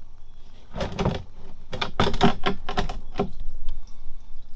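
Long screwdriver clicking and knocking inside the drain hole of the 7G-Tronic Plus transmission pan, in an irregular run of sharp clicks that is densest about two seconds in. It is pushing the plastic fill-level tube off inside the pan so the remaining fluid can drain out.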